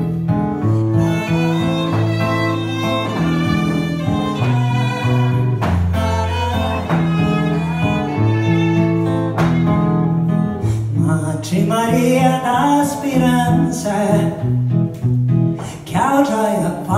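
Live acoustic music: a steel-string acoustic guitar strummed, with a violin and a cello playing held notes.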